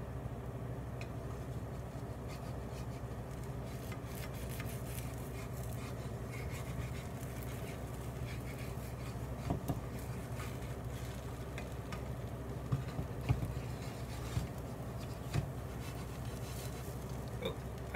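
Crepe batter cooking in a frying pan over a steady low hum, with a few light knocks and clicks of a utensil in the second half.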